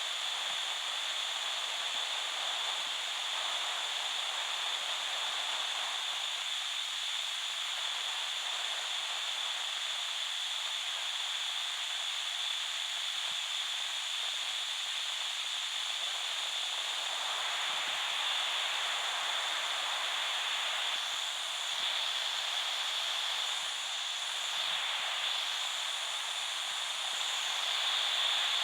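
Radio static: a steady, even hiss with little low end, with faint wavering whistles drifting in about two-thirds of the way through.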